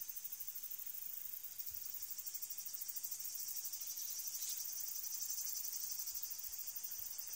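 Steady, high-pitched chorus of insects chirring in woodland, a fast even pulsing trill.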